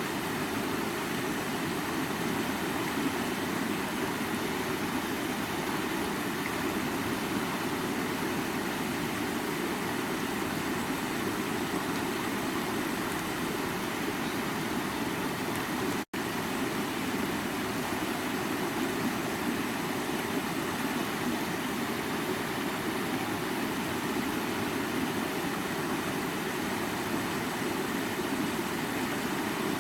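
Water of a stream rushing and babbling, a steady, even rush that is strongest in its low, full tones. It drops out completely for an instant about sixteen seconds in.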